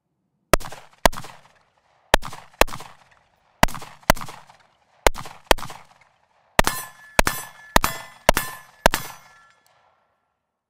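Unsuppressed AR-15 rifle with a 16-inch Geissele Super Duty 5.56 barrel firing: four quick pairs of shots, then five shots about half a second apart, each of the last five followed by a metallic ringing tone.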